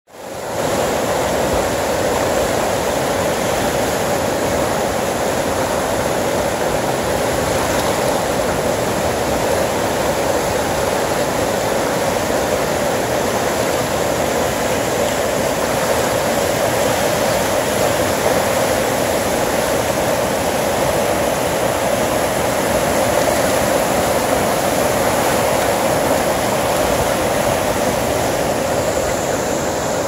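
River rapids in spring flood, high and brown with snowmelt: the loud, steady rush of turbulent water.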